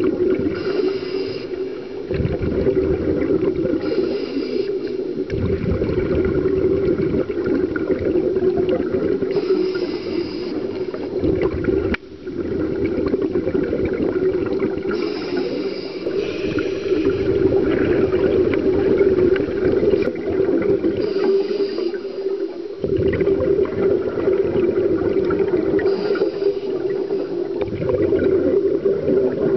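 Scuba diver breathing through a regulator underwater: a short hiss on each inhale every few seconds, alternating with a gurgling rush of exhaled bubbles, over a steady low drone.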